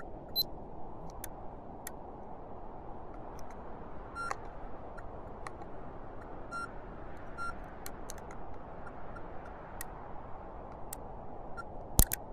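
Steady low noise with scattered faint ticks and a few short high beeps. A sharp click just before the end is the loudest sound.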